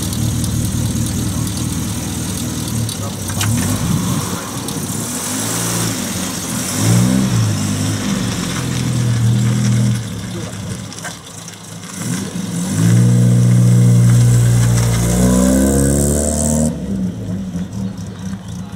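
Classic Mini's four-cylinder A-series engine on twin carburettors idling, then blipped and revved several times, with the longest, loudest rev near the end as the car pulls away.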